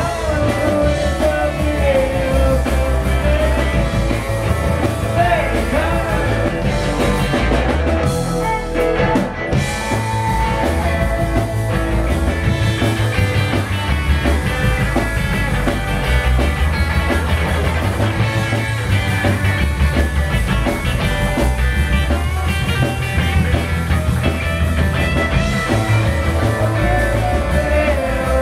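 Live rock band playing loud: electric guitar, upright double bass and drum kit.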